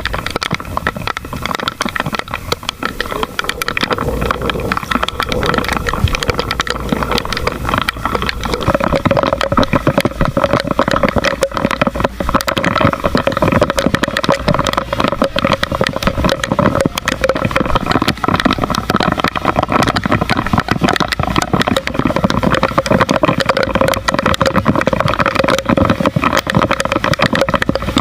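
Small boat engine running steadily over a crackling patter. It gets louder and a bit higher about eight seconds in.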